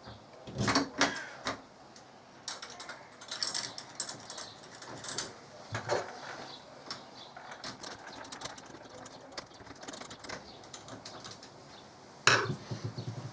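Screws being driven by hand into a door handle's backplate: irregular clicking and scraping of a screwdriver turning, with a louder knock near the end.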